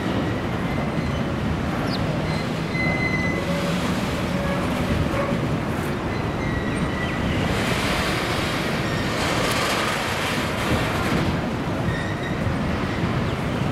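Container wagons of a long freight train rolling past in a steady rumble, with faint brief wheel squeals a few times.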